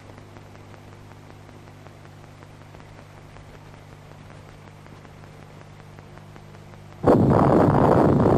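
Faint steady hum and hiss of an old television recording. About seven seconds in, a studio audience suddenly breaks into loud applause.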